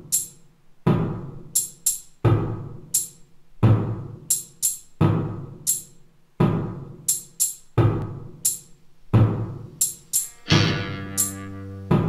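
Drum-kit opening of a noise-rock song: a low, ringing drum hit about every second and a half, each followed by a couple of sharp cymbal hits. Near the end a held, droning note comes in under the drums.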